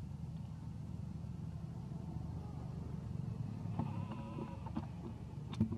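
Steady low rumble, with a short high-pitched squeal from a baby macaque about four seconds in and a couple of sharp clicks near the end.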